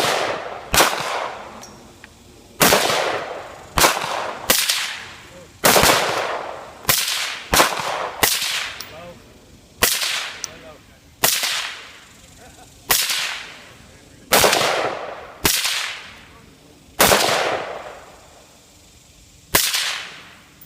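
Semi-automatic firearm fired in single shots, about sixteen at an uneven pace of roughly one a second, each with a long echoing tail.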